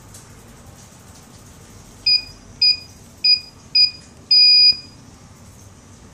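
DP-B1 GSM alarm panel's touch keypad beeping as keys are touched. There are four short, high beeps about half a second apart, then one longer beep.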